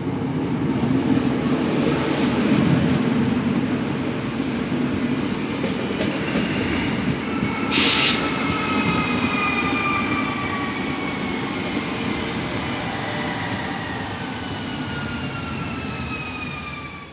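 Alstom Régiolis regional train rolling past at low speed with a steady rumble of wheels on track. About eight seconds in there is a brief hiss, after which several high whines fall slowly in pitch as the train slows.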